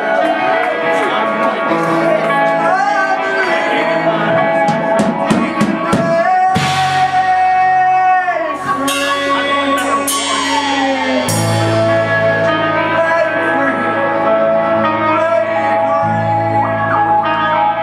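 Live rock band playing: lead vocals sung over electric guitar, keyboards and drum kit. Cymbal crashes come in about a third of the way through, and a heavier bass line enters near the middle.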